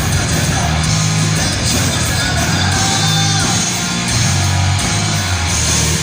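Heavy metal band playing live: electric guitar over a low bass line whose notes change every second or so.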